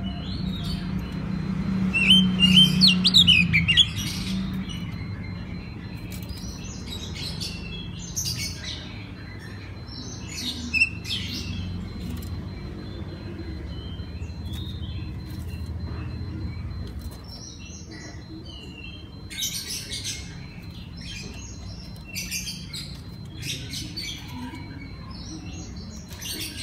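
Oriental magpie-robin singing: a string of varied short whistles and chirps, densest and loudest about two to four seconds in, over a low steady hum.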